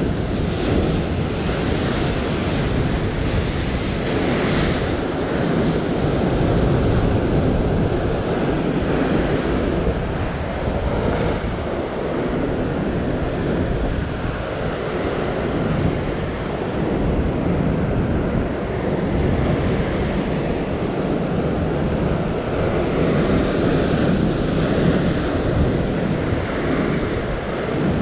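Ocean surf breaking and washing over shoreline rocks, a steady noise that swells and eases, with wind buffeting the microphone.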